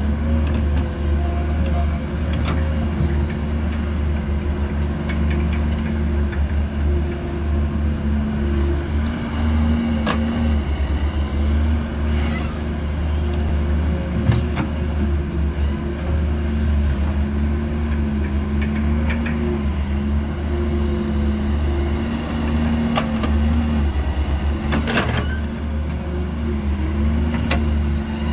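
Doosan DX140W wheeled excavator's diesel engine running under hydraulic load, its pitch rising and falling as the boom and bucket dig, with a few sharp knocks scattered through.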